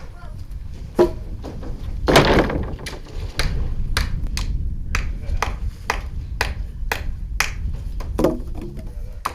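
Hammer blows on wood framing in a steady run of about two strikes a second, after a louder rough burst of noise about two seconds in.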